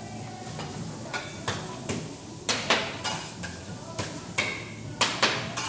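Cooking clatter: irregular sharp knocks of metal kitchen utensils against pans or a grill, about a dozen, the loudest coming in pairs about halfway through and near the end, over steady background noise.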